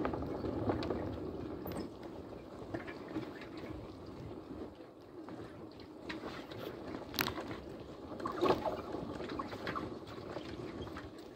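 Vehicle moving slowly along a rough dirt track: a steady low rumble with scattered knocks and rattles, the sharpest knock about seven seconds in.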